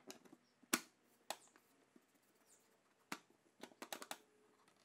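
Light knocks and clicks of a wooden table saw throat insert being set into and lifted out of the saw table's blade opening, a handful of separate taps with the loudest just under a second in and a quick cluster near the end.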